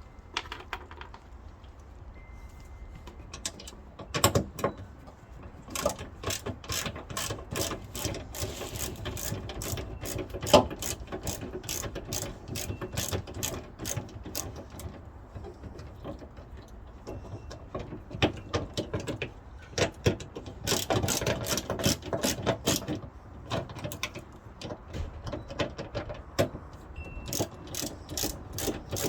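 Hand socket ratchet clicking in runs of rapid strokes, with short pauses between them, as the 10mm bolts holding a car's hood latch are worked loose.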